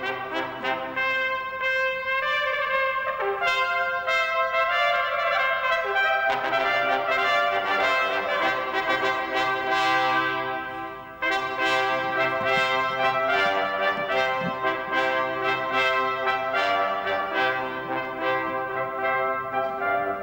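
Small trumpet ensemble playing a piece together, several parts sounding at once in held notes. About eleven seconds in, the sound briefly fades before the players come back in together.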